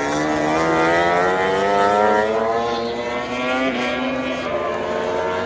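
A MotoGP racing motorcycle's 1000 cc four-stroke engine at high revs as it accelerates past, its note climbing for about two seconds and then falling away as it goes by.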